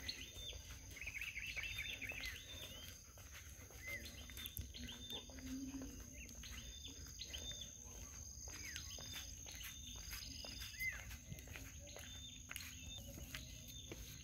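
Birds chirping, with short arched calls coming every second or so, over a steady high-pitched tone and a low rumble.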